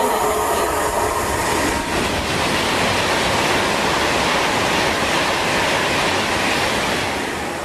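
Class 390 Pendolino electric train passing close by: a loud, steady rush of wheel and air noise that eases off near the end as the train goes by.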